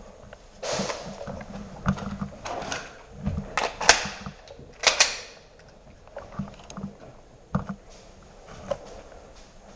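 Footsteps and kit rustling on a gritty, debris-strewn floor, in irregular scuffs and knocks. Two sharp cracks about a second apart near the middle are the loudest sounds.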